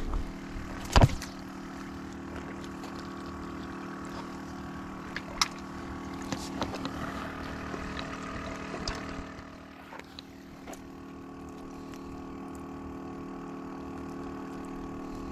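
A motor humming steadily throughout, with a sharp click about a second in and a few faint ticks later.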